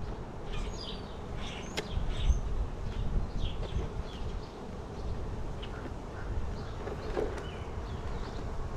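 Honey bees buzzing steadily around an open hive, with a low rumble of wind on the microphone and a sharp click about two seconds in.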